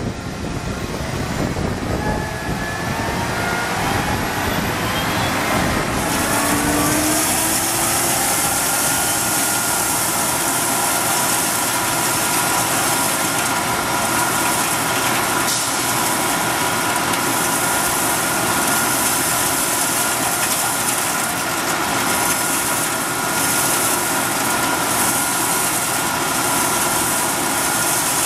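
Vacuum truck's blower spooling up, its whine rising over the first several seconds, then running steady with a loud rush of air into the suction pipe.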